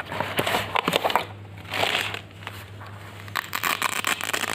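Cardboard clamp-meter box and its fabric carrying case being handled and opened: rustling, scraping and small knocks in two clusters, with a steady low hum underneath.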